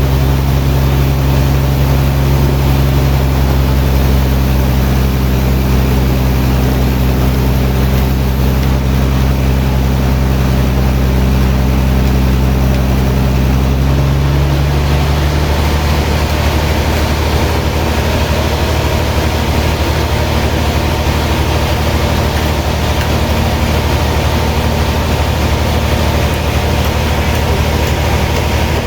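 Heavy sawmill machinery running with a steady low engine drone. Its tone shifts about halfway through.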